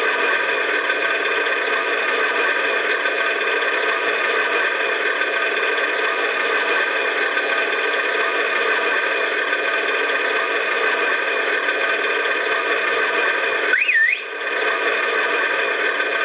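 Radio-controlled model truck driving slowly, giving off a steady droning hum made of several held tones, thin and without bass. About 14 seconds in it dips briefly, with a short squeal that rises and falls.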